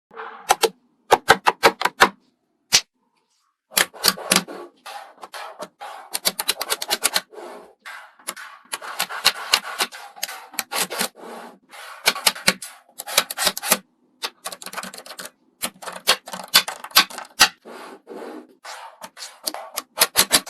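Rapid clicking and tapping of small objects handled by hand, in quick runs of several clicks a second with short pauses and some rubbing between.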